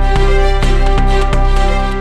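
Background music: a steady melodic track with a regular beat.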